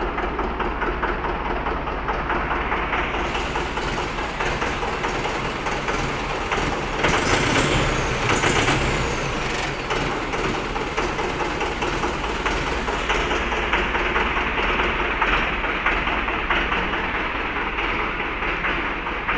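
Mahindra 595 DI tractor's diesel engine running steadily at idle, slightly louder for a few seconds in the middle.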